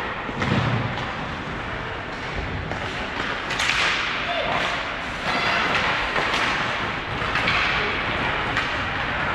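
Hockey rink noise: a steady hiss with a string of sharp cracks and thumps, about every second in the second half, typical of sticks striking the puck and the puck and players hitting the boards.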